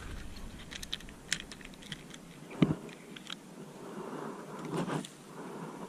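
Light, irregular clicks and rustles from a fishing rod and baitcasting reel being handled, with one louder knock about two and a half seconds in.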